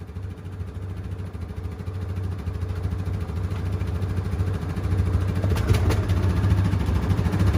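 ATV engines idling with a steady low pulse, growing gradually louder.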